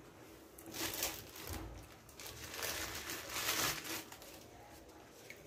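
Rustling and crinkling of mint leaves and paper towel as hands settle the leaves into a plastic container. There is a short burst about a second in and a longer stretch from about two and a half to nearly four seconds.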